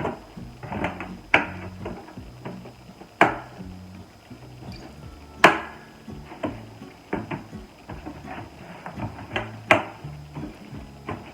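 Sharp clicks and knocks of hard plastic, several of them a second or more apart, as the panels of a plastic storage bin are fitted together, over background music with a low bass line.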